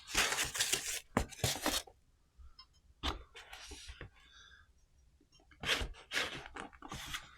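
Packaging rustling and crinkling as it is handled and torn open, in several bursts: a long one at the start, then shorter ones around three seconds in and again near the end.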